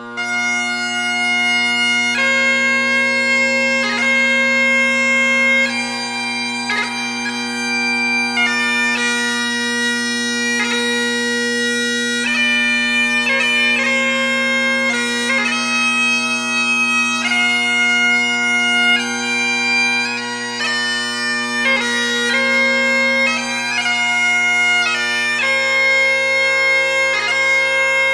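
Highland bagpipes playing a tune: a steady drone under the chanter's melody of held notes, with quick grace notes between them.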